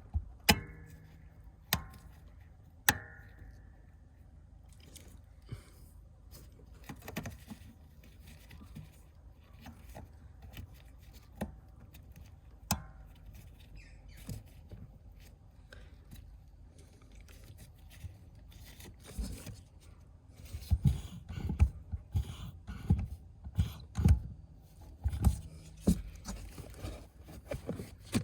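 Small clicks, knocks and handling noise of hand work under a car's dashboard around the brake pedal and its new brake light switch. There are three sharp clicks with a brief ring in the first few seconds, scattered small clicks after them, and a run of low knocks and thumps in the last third.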